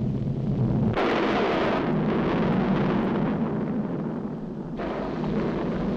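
Sound effect of a volcano erupting: a heavy, steady rumble that starts suddenly, with a loud rushing hiss joining about a second in.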